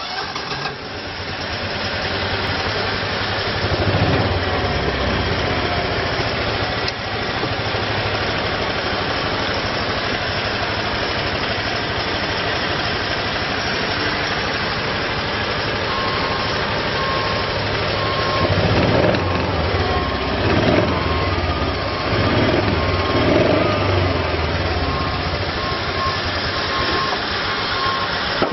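Kawasaki Mule 610 UTV's small single-cylinder engine running, briefly revved a few times. From about halfway through, a steady repeating beep sounds over the engine.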